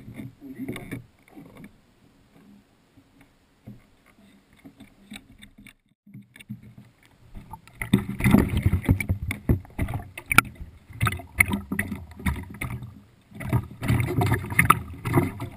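A dog lapping and eating from a water bowl, heard from a GoPro lying in its housing at the bottom of the bowl: faint knocks at first, then about halfway in rapid, loud splashing laps, with a short pause before a second burst near the end.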